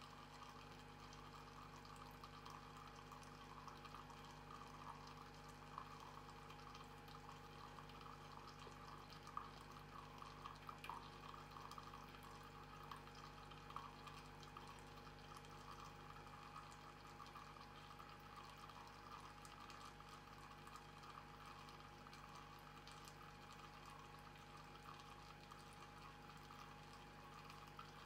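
Miele CM 7750 automatic coffee machine dispensing hot water through its spout into a glass of espresso to make an Americano: a faint, steady trickling pour over the machine's steady hum.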